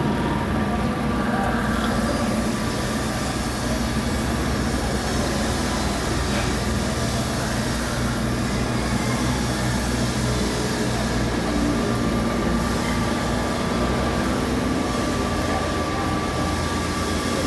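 Cylinder head resurfacing grinder running steadily, its large segmented grinding wheel spinning over the deck face of a Mitsubishi 4M40 cylinder head to skim it flat. The sound is an even mechanical rumble with a thin steady whine over it.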